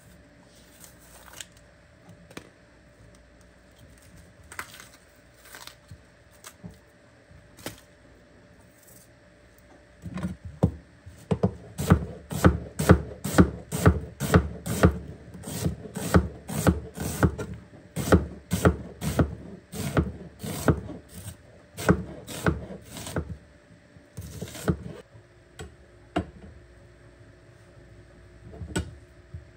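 Knife chopping on a wooden cutting board: a few scattered knocks, then about a third of the way in a fast, even run of chopping strokes, about two to three a second, that stops a few seconds before the end.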